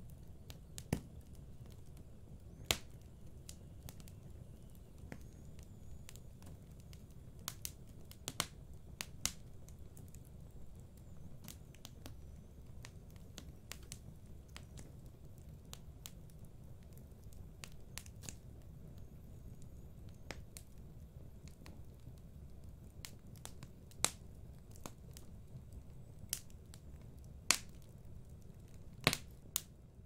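Fireplace fire crackling: a steady low rumble of burning with irregular sharp pops and snaps, a handful of them much louder than the rest, beginning to fade out at the very end.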